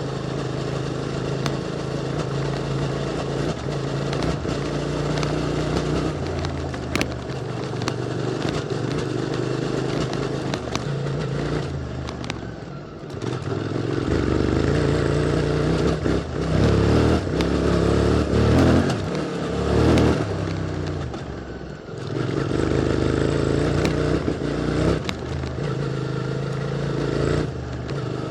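QJ Motor SVT650X motorcycle engine running through an Arrow Racetech slip-on exhaust, pulling steadily at first, then revving up and down repeatedly with two brief drops in the engine note where the throttle is closed. Scattered clicks and clatter from the stony track run underneath.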